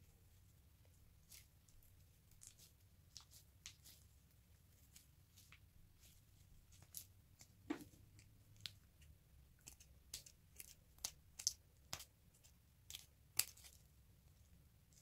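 Faint, scattered crackles and squelchy clicks as a mesh stress ball filled with gel beads is squeezed, then a run of sharper snips and tearing as scissors cut through its mesh during the second half, the loudest snip near the end.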